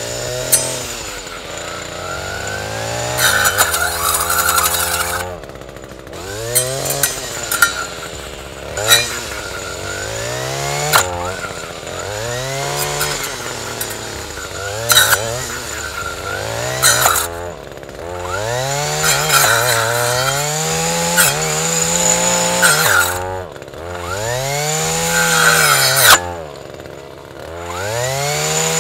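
Echo SRM-225 two-stroke trimmer engine revving up and falling back again and again as the circular saw blade mounted on it cuts into logs. Sharp cracks come from the blade biting the wood.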